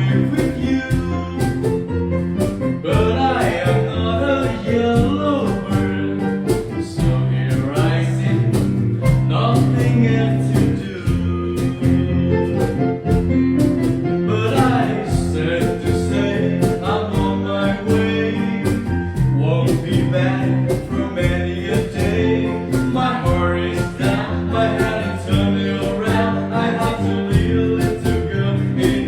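Acoustic guitar music strummed in a steady rhythm, with a melody line carried over it.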